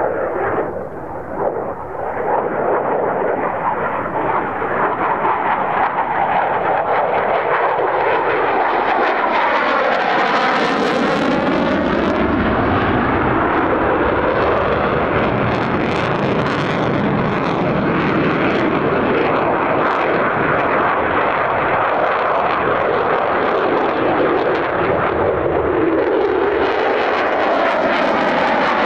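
Mitsubishi F-2 fighter's F110 turbofan jet engine, heard as a loud, continuous jet noise during display flying. It builds over the first few seconds and then holds, with a sweeping, phasing whoosh about a third of the way in and again near the end as the jet passes close.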